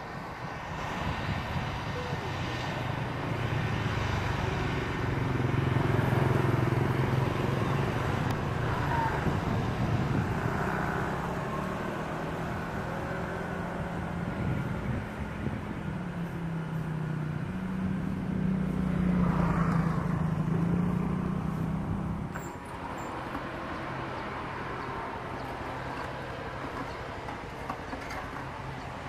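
Single PT6A turboprop engine and propeller of a KAI KT-1 Woongbi trainer aircraft droning as it moves along the runway. The drone is louder about six seconds in and again around twenty seconds, and drops off suddenly near the end.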